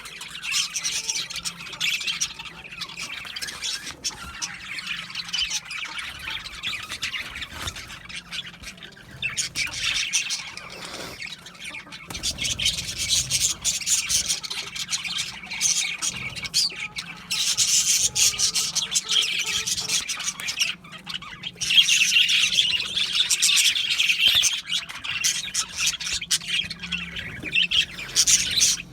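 A group of budgerigars chattering, chirping and squawking together without pause, swelling louder in stretches during the second half.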